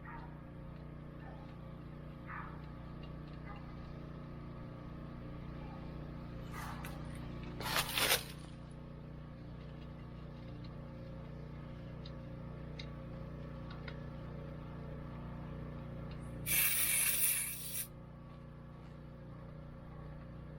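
A 12-volt cordless tire inflator runs with a steady hum, airing up a low skid steer tire. Pressure-washer spray hisses loudly twice, about 7 seconds in and again about 17 seconds in.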